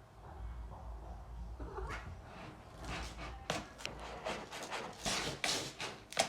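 Domestic cat meowing several times, with sharp taps or clicks around it in the second half; the loudest tap comes near the end.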